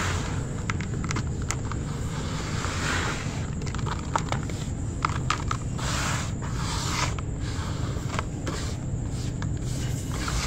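Hands crumbling and rubbing ash in a large basin: gritty scraping and rustling with scattered small clicks, irregular in pace, over a steady low rumble.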